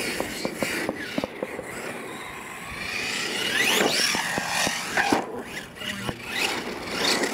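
R/C monster truck's motor revving up and down in quick rising whines, with sharp knocks and clatter as the truck bounces, lands jumps and hits the dirt.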